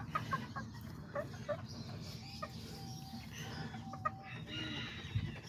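Small kikiriki (miniature) chickens clucking softly: scattered short clucks, with a few brief even-pitched calls in the middle.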